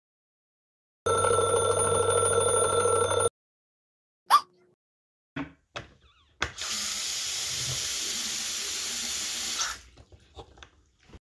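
A digital alarm clock buzzes for about two seconds, then stops. A sharp click and a few light knocks follow, then water runs steadily for about three seconds and cuts off.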